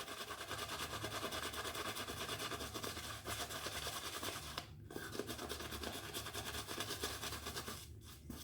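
Damp shaving brush working soap into a lather on the face: a continuous soft scrubbing. It breaks off briefly a little before the middle and fades near the end.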